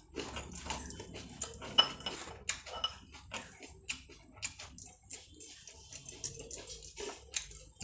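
Close-up eating sounds: chewing and mouth smacks, with clinks against a plate.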